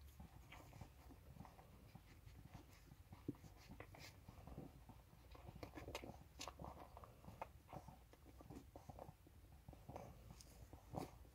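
Faint, irregular smacking and clicking of a litter of puppies suckling from their mother.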